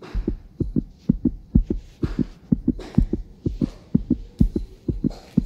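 Steady low thumps in pairs, about two pairs a second, like a heartbeat.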